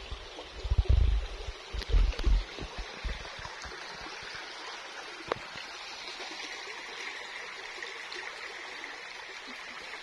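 Shallow river water running over stones, a steady rushing babble. A few loud low thumps on the microphone come in the first two and a half seconds, and a single sharp click about five seconds in.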